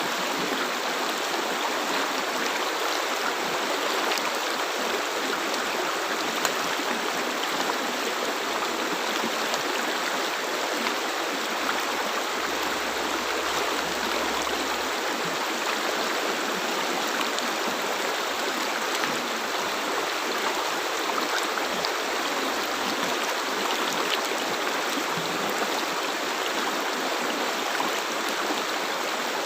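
River water flowing and rushing over rocks: a steady, even splashing rush with no change throughout.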